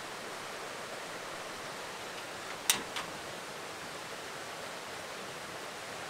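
Steady rushing of a small brook, with a sharp click about two and a half seconds in and a fainter one just after.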